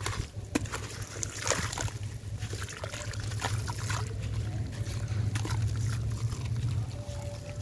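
A wet sand-cement chunk being squeezed and crumbled by hand in a tub of water: irregular gritty crunches and crackles, with splashes and trickling as the wet pieces drop back into the water. A steady low hum runs underneath.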